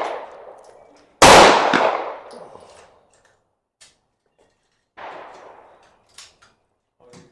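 A loud rifle shot about a second in, with a long echoing tail, then a much fainter shot about four seconds later and a few light clicks near the end.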